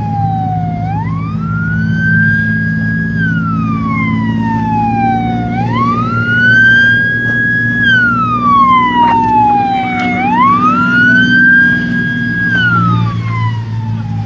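Coast guard patrol boat's siren wailing in slow cycles, each rising quickly, holding high for a couple of seconds, then falling slowly, about three cycles in all. A boat engine runs underneath with a steady low hum.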